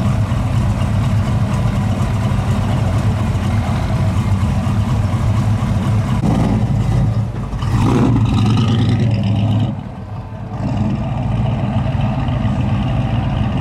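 Dodge Power Wagon 100 pickup engine running with a steady low rumble. It is revved up a couple of times around the middle as the truck pulls away, dips briefly, then settles back to a steady run.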